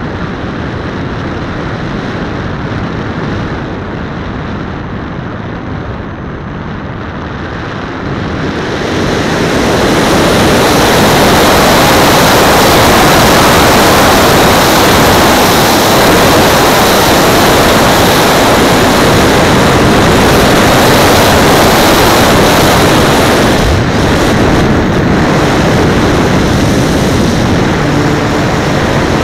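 Radio-controlled powered glider in flight, heard from a camera on its wing tip: a steady rush of air over the camera that swells much louder about nine seconds in and stays loud, with a faint steady high whine.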